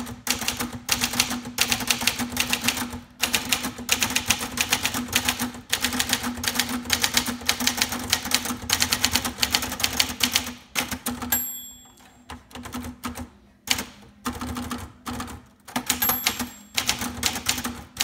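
Fast typing on a 1976 Sears Achiever (Brother JP7) manual portable typewriter: quick runs of typebar strikes with short pauses. The margin bell rings briefly about eleven seconds in and again near the end, as the line reaches the right margin.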